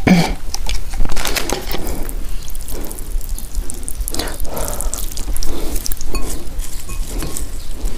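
Soaked instant hot and sour noodles and their broth sliding and splashing out of a paper cup into a ceramic bowl, then the wet noodles lifted and handled with chopsticks, broth dripping and splashing back into the bowl in uneven wet spatters.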